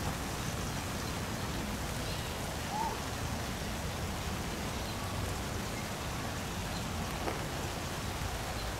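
Light rain falling, a steady even hiss.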